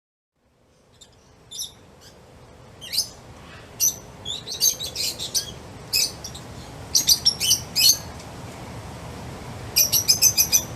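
Birds chirping: short, high chirps, some single and some in quick runs, over a low background ambience. The ambience fades in after a brief silence at the start, and a fast run of chirps comes near the end.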